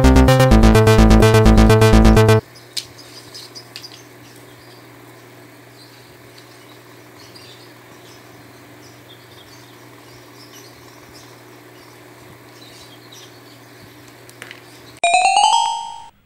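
Loud background music with a steady beat for the first two seconds or so, then cutting off to faint room noise with a low hum and a few small clicks. Near the end, a bright chime-like sound effect of several tones rings and fades out.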